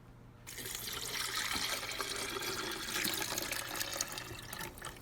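Water being poured steadily into the water reservoir of a Cuisinart grind-and-brew coffee maker. It starts about half a second in and stops just before the end.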